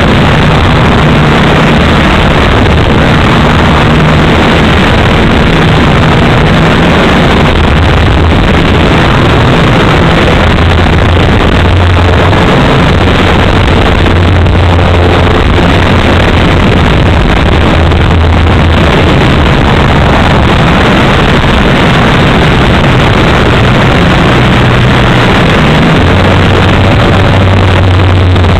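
Gasoline two-stroke engine of a 3W-powered RC aerobatic plane heard from the onboard camera, running loud and steady under a heavy rush of wind on the microphone. The low engine note shifts up and down a few times as the throttle changes.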